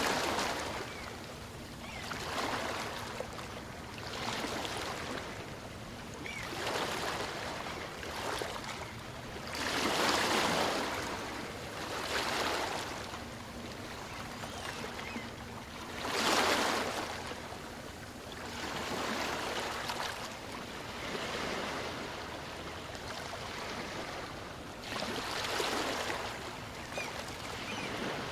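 Small waves of a calm sea washing in and out on a beach: the surf swells and fades every two seconds or so, with the largest waves about ten and sixteen seconds in.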